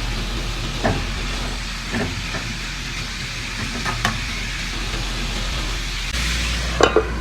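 Chopped chicken liver, gizzard and heart sizzling steadily in a hot pan, with a cooking utensil knocking and scraping against the pan a few times, loudest near the end.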